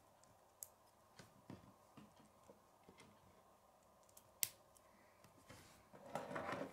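Plastic K'nex pieces clicking as they are snapped together by hand: a handful of small separate clicks, the sharpest about four and a half seconds in, then a short louder clatter of plastic parts near the end as the model is picked up and turned.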